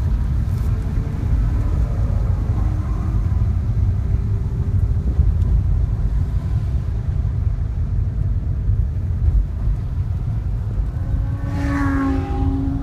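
Inside the cabin of a 2010 BMW 3 Series rolling at low speed: a steady low rumble of engine and road noise. A brief pitched note rises above it near the end.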